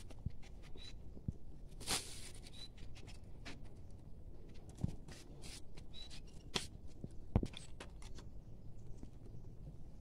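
Scattered faint clicks, rustles and scrapes of hands handling a chicken-wire bird trap among leaves, with a sharper knock about five seconds in and another near the end. A few tiny high peeps come in between.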